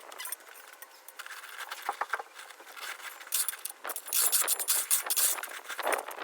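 Hand digging in stony ground: a shovel scraping and crunching into soil and crushed stone in irregular strokes, busier in the second half.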